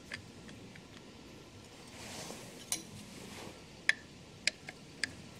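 Scattered light metallic clicks and clinks from a hex key and the steel parts of a shaper gear cutter's adjustable bracket being handled, with a faint scrape about two seconds in.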